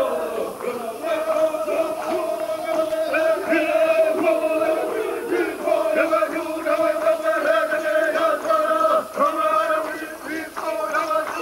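Kayapo men chanting together in a traditional dance: many male voices holding long notes in unison, with a few brief breaks.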